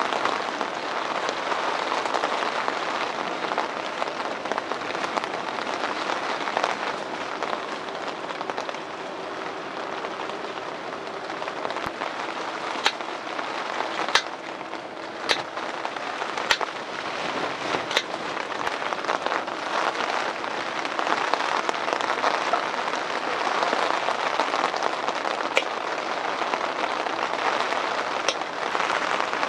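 Kitchen knife slicing carrots and potatoes on a wooden cutting board, with a handful of sharp taps of the blade on the board, clustered in the middle. Under them runs a steady rushing hiss.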